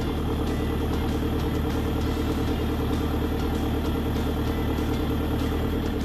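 JCB 3CX backhoe loader's diesel engine running steadily.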